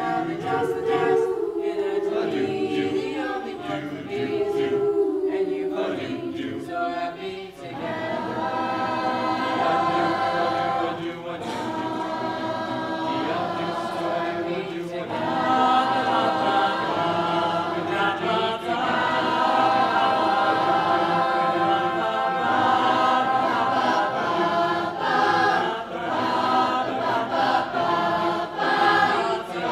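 Mixed high school choir singing in harmony. After a brief dip about seven seconds in, the voices come back fuller and higher.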